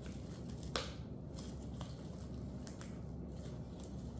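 Quiet handling of a handbag and its packaging, with one sharp click just under a second in and a few faint ticks after it.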